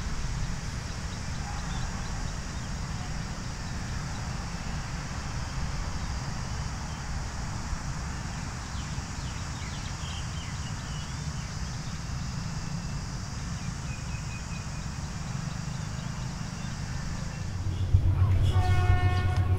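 Steady low rumble and hiss, then about two seconds before the end a train horn sounds over a heavy low engine rumble as a train comes through.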